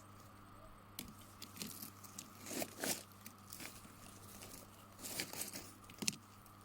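Faint rustling and crunching of potato plants and soil being handled during harvesting. It comes in scattered short bursts with a few small clicks.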